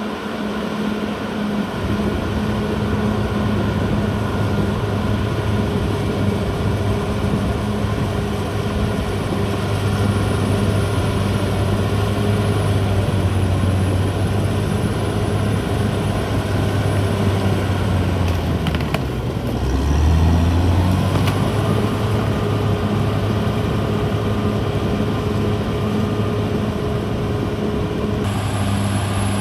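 Diesel engine of a Caterpillar D6R XL bulldozer running steadily under work. Its note dips briefly about two-thirds of the way through, then picks back up.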